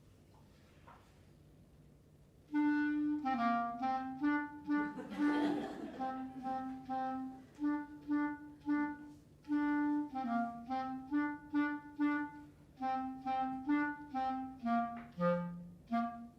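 Solo clarinet playing a short improvised melody in quick, mostly detached notes. It starts about two and a half seconds in, after a quiet pause.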